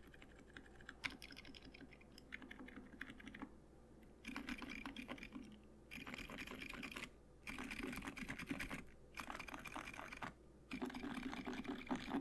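Typing on a Tiger Lite mechanical keyboard fitted with Durock T1 Silent Shrimp silent tactile switches, a PC plate and Osume Mochi keycaps: dampened, muted keystrokes. It starts as scattered single keystrokes, then about four seconds in turns into fast bursts of typing separated by brief pauses.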